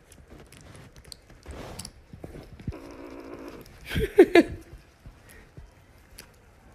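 A kitten licking and chewing at an ice-cream bar: small wet clicks and smacks, with a short, louder pitched vocal sound about four seconds in.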